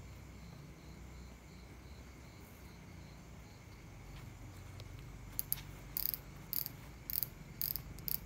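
Night insects calling: a steady high cricket trill. About five seconds in, sharp, very high chirps join it, roughly twice a second.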